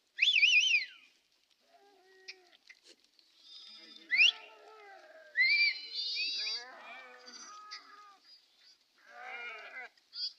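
A flock of sheep bleating, with several separate calls. The loudest is a high, quavering bleat right at the start, and more bleats follow near the middle and toward the end.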